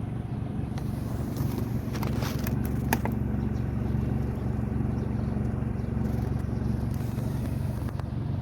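A vehicle engine running steadily, with a few sharp clicks about two to three seconds in.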